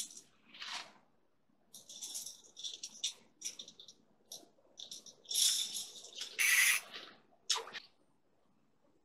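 Close rustling and scratching of fishing tackle being handled, in short irregular bursts, loudest about five to seven seconds in.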